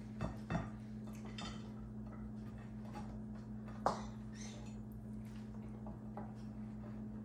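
A spatula scraping and tapping salad out of a mixing bowl into a glass dish: a few soft knocks, two close together at the start and a sharper one about four seconds in, over a steady low hum.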